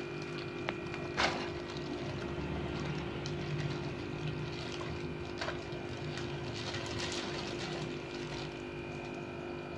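Water sloshing and pouring as a plastic bag of water is emptied into a plastic container, with the bag crinkling now and then over a steady background hum.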